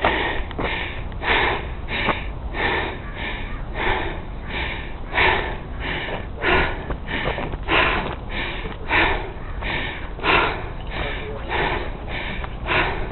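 Footsteps of someone walking on wet, slushy pavement: an even scuffing crunch about every two-thirds of a second, over a steady low rumble.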